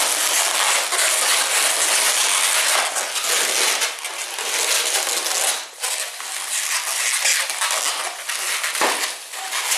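Balloon inflator blowing air through its hose into a 160 modelling balloon: a steady rush of air, with short breaks just past halfway and near the end.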